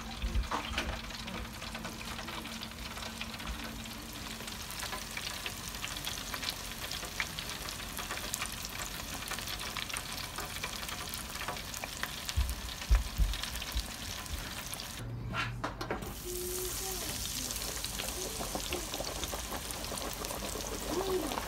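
Breaded fish fillets deep-frying in hot oil in an electric deep fryer: steady crackling and sizzling with a dense patter of small pops. A few low thumps come near the start and about halfway through, and the sound breaks off briefly and resumes near the end.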